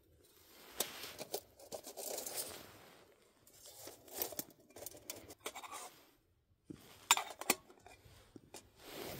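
A small backpacking stove is lit, then a metal cook pot is set on it and its lid is handled: scattered light clicks, rustles and short scrapes, with two sharper metallic clicks about seven seconds in.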